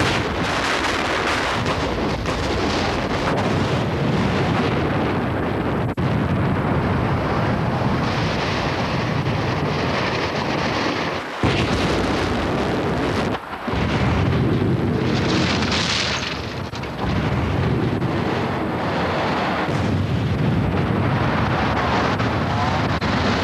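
Building demolition by explosive charges: blasts and the long rumble of the structure collapsing. The noise breaks off abruptly a few times and starts again.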